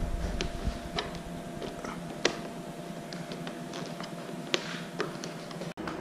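Scattered light clicks and taps of plastic snowmobile trim and wiring being handled and fitted, one sharper than the rest about two seconds in, over a faint steady hum.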